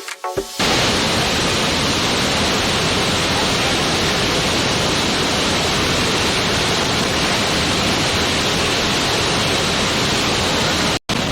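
Steady rushing of a waterfall, an even noise with no rhythm. The last notes of music fade out in the first half second, and the sound cuts out for an instant near the end.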